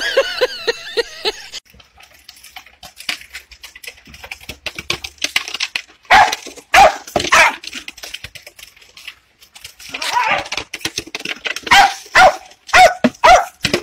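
Small terrier barking in short, sharp barks. There is a cluster of loud barks about six seconds in and a faster run of barks from about ten seconds in. Before them comes a wavering, pitched call in the first second and a half.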